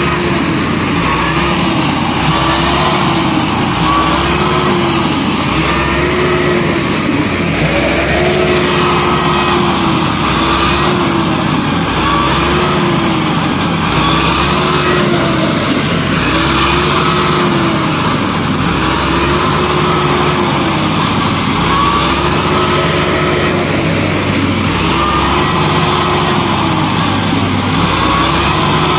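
Massey Ferguson 385 tractor's four-cylinder diesel engine working hard under heavy load, its note swelling and falling about every two seconds as it strains to drag a loaded sand trolley out of soft sand.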